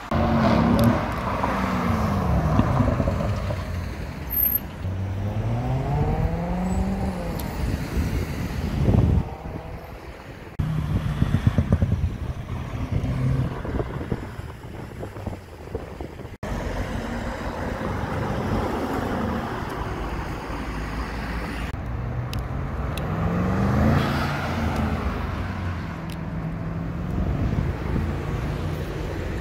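Car engines accelerating hard past on the street, each run a rising pitch that drops back at the gear change and climbs again. The sound cuts between several separate passes.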